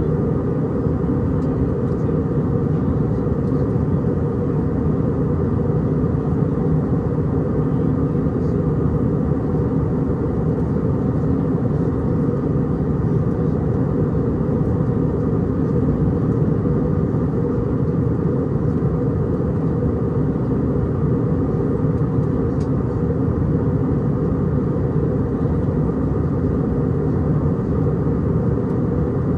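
Steady cabin roar inside an Airbus A319-100 on approach: engine and airflow noise, deep and even, with no distinct events.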